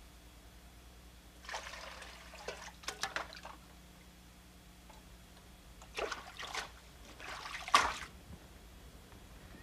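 Water splashing and trickling in a basin as someone washes by hand, in four short spells with pauses between them.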